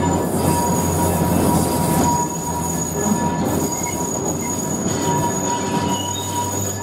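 1904 open-sided electric tramcar running along its rails: a steady low rumble with thin, high whining tones held over it.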